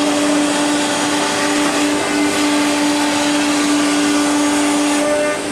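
CNC router spindle cutting a wooden furniture panel: a steady tone over a broad rushing noise, the tone cutting out just before the end.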